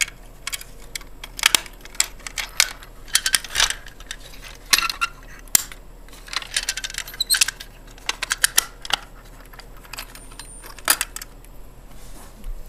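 Keys jangling and irregular sharp metallic clicks as an EST SIGA-278 signature pull station is unlocked with its key and its handle is set back to reset it after an alarm.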